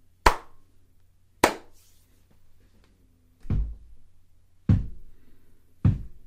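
Two sharp hand claps, then three dull knocks at an even pace answering them: the clapping answered by the same number of raps that the Fox family took for a spirit.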